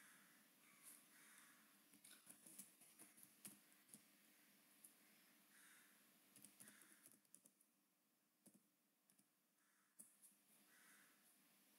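Near silence with faint, scattered clicks of a computer keyboard being typed on and a mouse being clicked.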